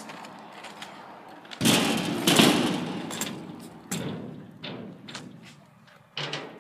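Kick scooter dropping in and riding down a skatepark ramp. A loud thud of the wheels landing about a second and a half in is followed by rolling noise that fades, with several sharp clacks as the scooter crosses the ramp and deck.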